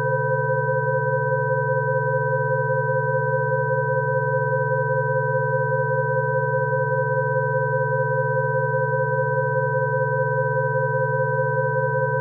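Rife frequency tone track: several steady electronic sine tones sounding together without change. There is a low hum, a close pair of middle tones and two higher pure tones.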